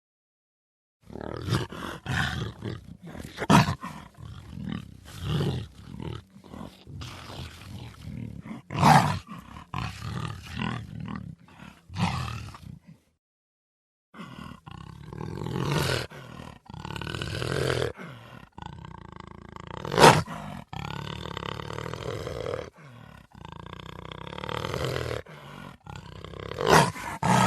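A large wild cat roaring in repeated loud, irregular bursts. It breaks off into silence twice, near the start and about halfway through.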